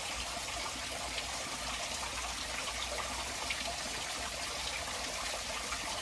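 Small waterfall trickling down a mossy rock face into a shallow pool: steady splashing of falling water.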